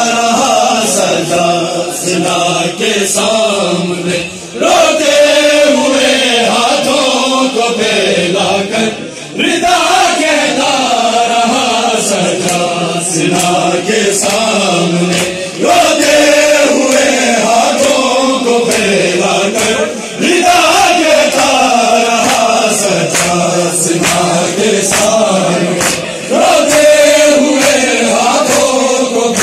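Men chanting a noha, a Shia mourning lament, together in long falling phrases about every five to six seconds, with sharp slaps of hands on bare chests (matam) mixed in.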